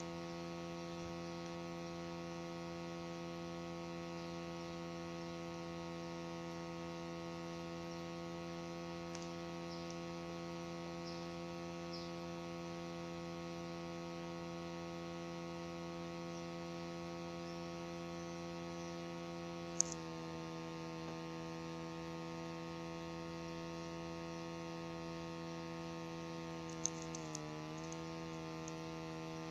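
A steady electrical hum with many overtones, wavering briefly in pitch near the end. A sharp click about two-thirds of the way through and a few small clicks near the end.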